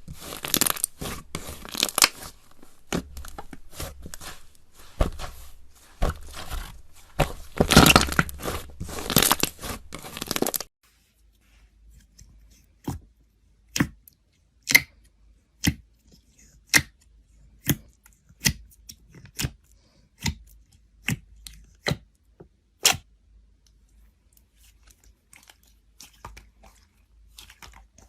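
Slime being squeezed and stretched by hand, with dense crackling and popping. About ten seconds in the sound cuts off suddenly and gives way to single sharp pops roughly once a second, which grow fainter near the end.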